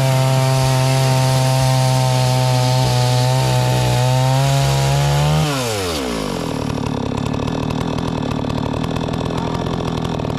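Holzfforma G660 92cc two-stroke chainsaw on an Alaskan chainsaw mill, held wide open at a steady high pitch while ripping a log. About five and a half seconds in, the throttle is released: the pitch drops quickly and the engine settles into a lower, uneven idle.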